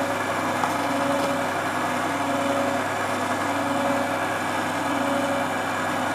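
Electric mixer's motor running steadily at one constant speed, with a steady hum, its wire whisk beating batter in a stainless steel bowl.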